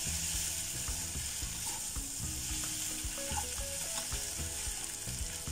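Flat rice noodles, onion and carrot sizzling steadily in a stainless steel wok as they are stirred and turned with a metal spatula, with a few light scrapes and clinks of the spatula on the pan.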